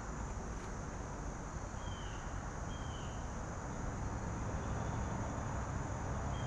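Outdoor ambience: steady wind rumble on the microphone under a steady high insect drone, with three short, falling bird chirps, two close together early on and one near the end.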